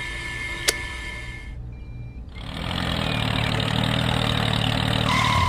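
Small toy electric motor humming steadily, with a sharp click about a second in as its wire is touched. After a brief dip it gives way to a louder, rougher engine-like running sound.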